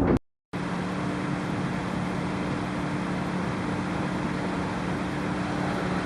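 Steady drone of a car ferry underway: a constant low engine and machinery hum with a wash of noise over it. It cuts out briefly just after the start.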